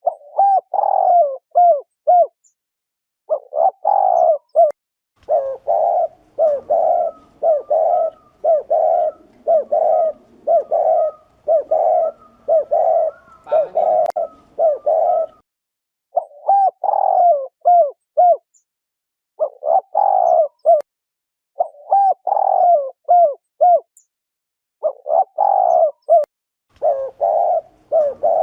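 Spotted dove giving its 'gù' cooing call, low coo notes repeated in quick phrases. One long unbroken run of coos fills the middle, with short pauses between the other phrases.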